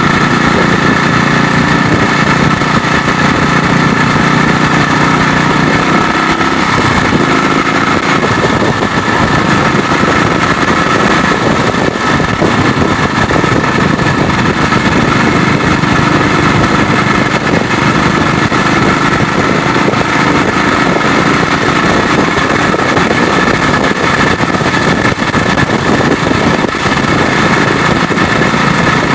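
BSA 441 single-cylinder four-stroke motorcycle engine running under way, heard from the handlebars with steady wind and road noise over it. The engine note changes about six and a half seconds in.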